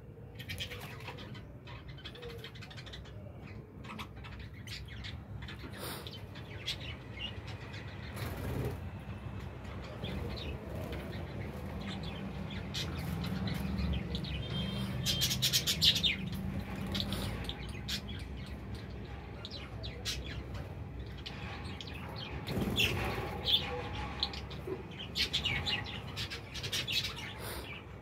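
A flock of budgerigars chattering and chirping, with busier bursts of calls around the middle and again near the end.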